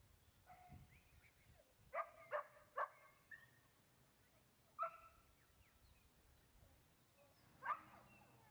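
A dog barking in short, sharp single barks: three in quick succession about two seconds in, another near five seconds and one more near the end.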